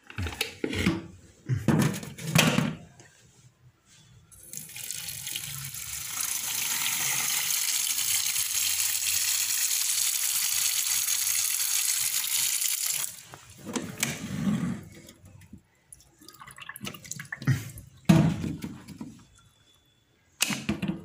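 A kitchen tap running a steady stream of water into an aluminium pressure cooker pot in a steel sink for about eight seconds. Before and after it come a few sharp knocks and clatter as the pot is handled.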